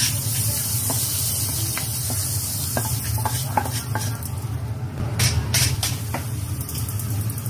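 Vegetables sizzling in a hot wok during dry-frying, with a spatula clicking and scraping against the pan. The sizzle thins out as the wok is emptied, and a few sharp knocks of the wok and utensil come about five seconds in, over a steady low hum.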